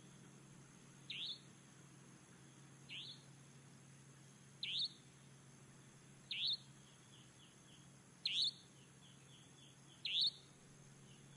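A bird's short rising chirp, repeated six times at an even pace of about one every two seconds, with fainter runs of short notes between the later chirps. A low steady hum lies under it.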